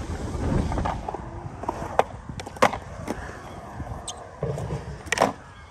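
Skateboard rolling on a concrete skatepark surface, a low rumble of the wheels that eases off after the first second, broken by several sharp clacks of the board, the loudest about five seconds in.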